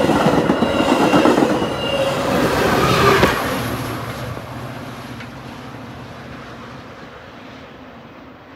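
Metra commuter train of bilevel cars passing close at speed, a loud rolling rumble and clatter of steel wheels on rail. About three seconds in, it gives way to a quieter train rumble that fades away.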